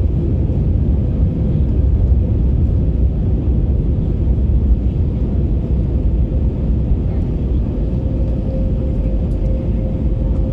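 Steady roar of engines and airflow heard inside the cabin of an Airbus A321neo on final approach, mostly a deep rumble. A faint steady tone joins in the last few seconds.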